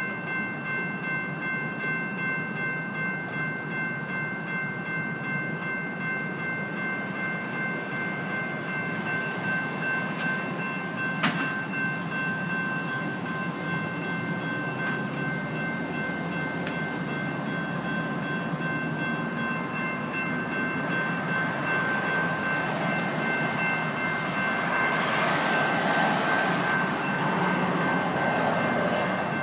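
GS Type 1 and Type 2 electronic crossing bells ringing steadily at an active railroad grade crossing. The noise of an approaching train swells from about 24 seconds in.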